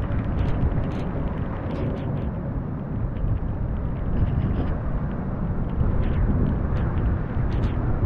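Storm wind buffeting a GoPro's microphone in a steady low rumble, mixed with the noise of heavy rain and surf, with scattered sharp ticks through it.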